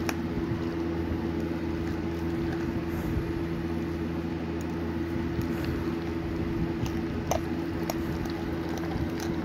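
Thick cream cheese, spinach and artichoke filling being stirred in a glass bowl: soft squishing, with a few sharp light clicks. A steady low hum runs underneath.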